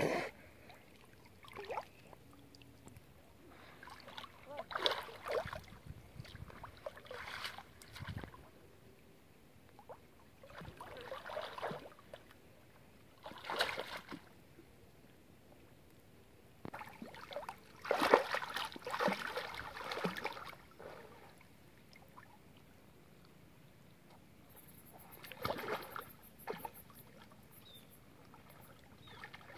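Water sloshing and swishing in irregular bursts every few seconds as a person swims through shallow muddy water, with a longer, louder stretch of splashing about two-thirds of the way in.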